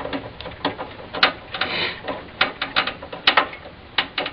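Screwdriver driving the screw that holds a graphics card's bracket to a computer case: a run of irregular sharp metallic clicks, with a brief scrape near the middle.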